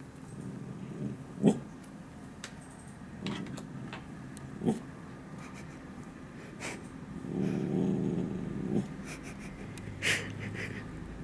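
Dog grumbling and huffing under its breath at people passing outside the window, a low warning growl rather than full barking. Three short sharp huffs stand out, about a second and a half in, near five seconds and about ten seconds in, with a longer grumble in between.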